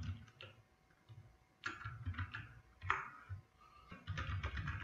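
Computer keyboard typing: keystrokes clicking in several short runs.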